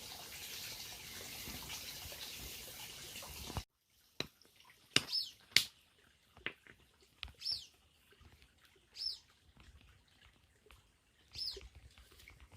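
A steady hiss cuts off abruptly a few seconds in. A wild bird then gives a short, sharply falling chirp four times, about every two seconds, among a few sharp clicks.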